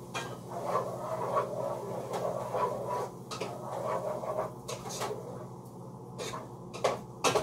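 A spoon stirring and scraping diced tomatoes in a pot on the stove, then a few sharp knocks near the end, over a steady low hum.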